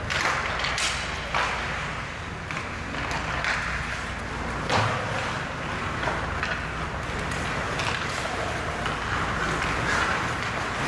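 Ice hockey play: skate blades scraping across the ice, with scattered sharp clacks of sticks hitting the puck.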